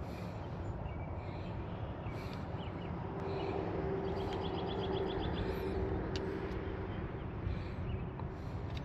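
Steady low rumble of distant road traffic with a faint engine hum, and a bird's rapid trill about three seconds in.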